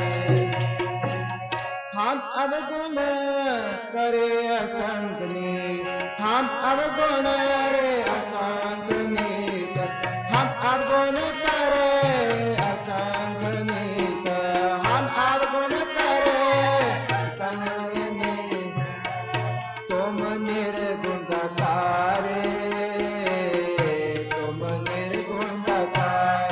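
Sikh devotional kirtan: a man singing a melodic hymn to harmonium, with tabla keeping a quick steady beat.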